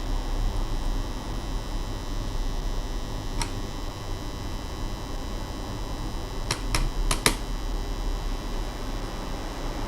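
A few short, sharp clicks over a steady low hum: one single click about a third of the way in, then four in quick succession about two-thirds in.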